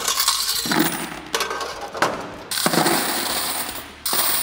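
Quarters jingling and clattering from a commercial washer's coin box as it is handled and emptied into a plastic bucket, in several separate bursts.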